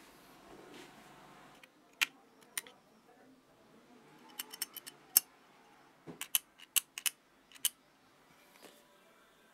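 Sharp metallic clicks of steel tweezers handling small parts of a cordless drill's gearbox, about a dozen in all, singly and in quick clusters, with a soft rustle of handling at the start.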